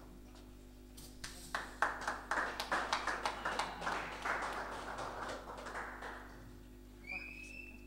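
A small audience clapping for about five seconds, starting about a second in, a few claps a second, then tapering off. Near the end comes a short high tone that rises in pitch.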